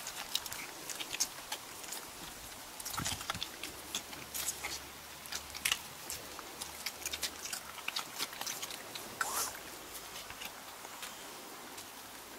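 Several six-week-old puppies suckling from an adult dog: an irregular run of wet smacking and clicking sounds.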